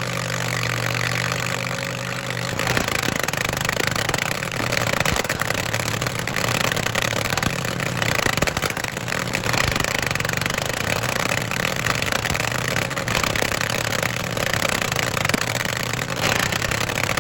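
Vermeer SC30TX stump grinder's engine running steadily under load as the cutter wheel grinds into a stump, a continuous engine drone under dense grinding noise. About two and a half seconds in, the engine note shifts and the grinding noise thickens.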